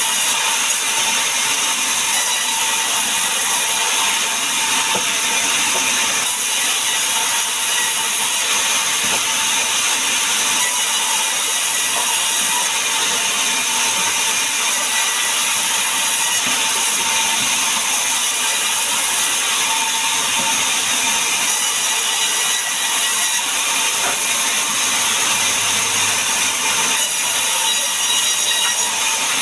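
Large vertical sawmill band saw running steadily and cutting lengthwise through a log as it is pushed past the blade, a continuous dense cutting noise with a faint steady whine.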